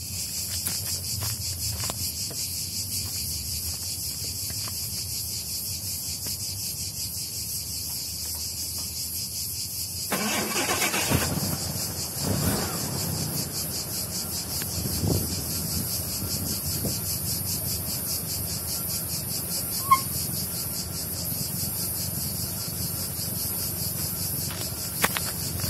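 Jaguar XJ6 straight-six cold-started: the starter cranks about ten seconds in, the engine catches and revs up and down a few times, then settles to a steady idle. Cicadas buzz steadily throughout.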